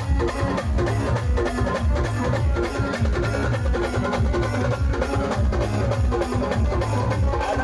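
A band playing a fast pawri dance tune: a dense, driving drum beat under a repeating melody.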